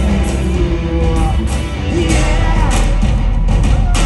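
Loud rock music over a live show's sound system, with a heavy bass beat, drum hits and a sung melody line.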